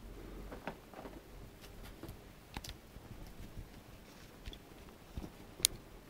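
Ragdoll kittens scrambling about on a quilted bed: scattered soft taps and light ticks, with one sharper click near the end.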